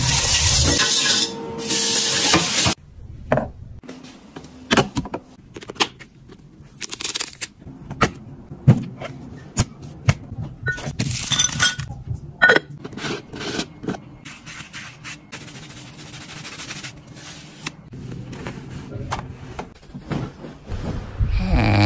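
Bristles of a soap-dispensing dish brush scrubbing a frying pan: a loud scratchy rubbing that stops about three seconds in. After it come scattered light clicks and knocks.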